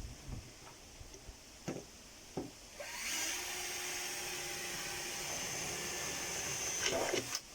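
Power drill running steadily for about four seconds, starting about three seconds in, after a few light knocks.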